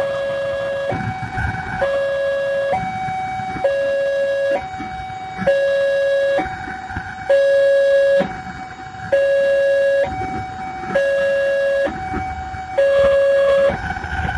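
Railway level-crossing warning alarm sounding its two-tone signal, a lower and a higher tone taking turns about once a second, the warning that a train is crossing. Under it runs the rumble of a passenger train passing over the crossing.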